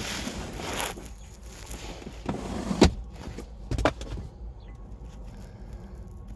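Rustling and handling noise with two sharp knocks, the louder about three seconds in and another about a second later: hands working at the car's interior, such as the glove box.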